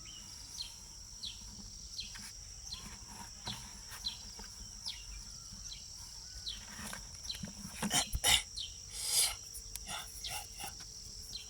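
Steady high-pitched chorus of crickets and other insects, with a short falling chirp repeating about every three-quarters of a second. A few sharp knocks and a brief rustle come about eight to nine seconds in.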